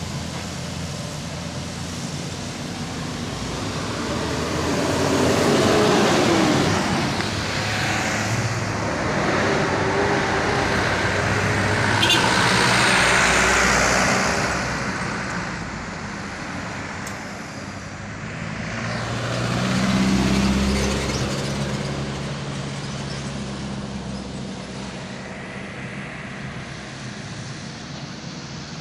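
Road traffic on a steep uphill bend: trucks, a bus, a motorbike and cars driving past one after another, each passing swelling up and fading away.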